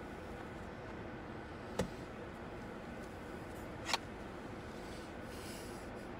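Steady background noise inside a car cabin, with two short clicks about two seconds apart.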